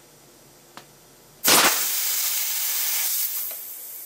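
Homemade .565 calibre big bore air rifle firing a 500 grain lead slug on 450 psi high pressure air: a sudden sharp blast about a second and a half in. A loud rush of escaping air follows for about two seconds, then fades to a fainter hiss.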